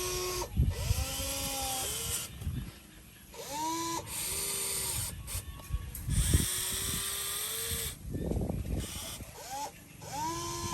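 Small electric motors whining in short runs, each spinning up to a steady pitch and winding down, several times over, with abrupt breaks between them.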